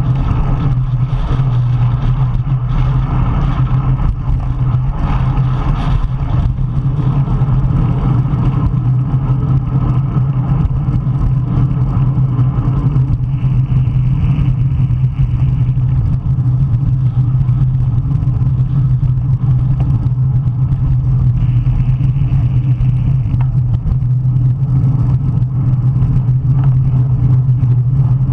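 Strong wind buffeting the microphone of a camera riding on a racing bicycle, a steady loud rumble, with a higher hiss rising over it twice.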